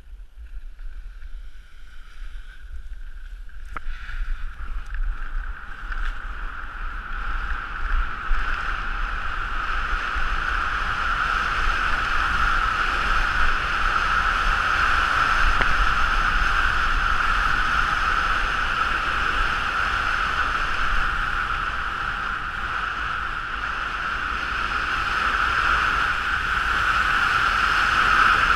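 Wind rushing over a camera microphone as a speedrider skis downhill, building over the first ten seconds as speed picks up and then holding loud, with a heavy low buffeting rumble. The skis hiss over the snow underneath.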